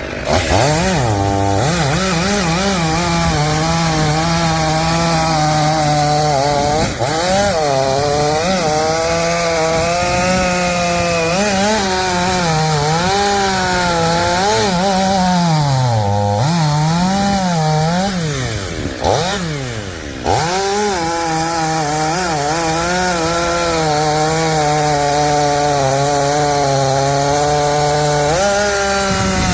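Stihl MS500i fuel-injected two-stroke chainsaw cutting oak firewood. The engine runs at high revs, and its pitch repeatedly sags and recovers as the chain bites into the wood, with a short drop in revs about two-thirds of the way through.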